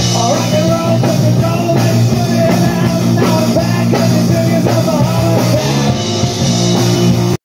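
Live rock band playing through a PA system: electric guitars and a drum kit, loud and continuous.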